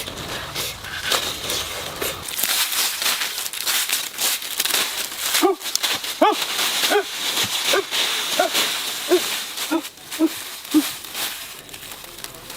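A string of about ten short, rising-and-falling animal calls over steady crackling noise.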